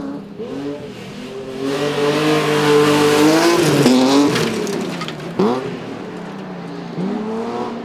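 BMW E30 rallycross car's engine revving hard as it passes close: the note climbs and is loudest about three seconds in, with a hiss of tyres on loose dirt, then drops. About five and a half seconds in comes a short, sharp rev, and then a steadier, quieter engine note.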